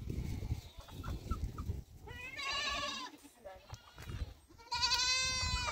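Goat bleating twice: two long, wavering calls, each close to a second long, the second just before the end.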